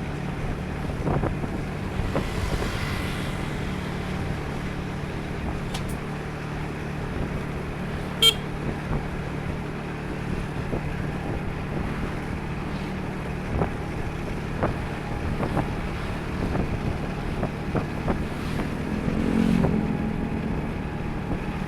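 Steady engine and road noise of a motorcycle being ridden, with a brief sharp tick about eight seconds in and a short swell in the noise near the end.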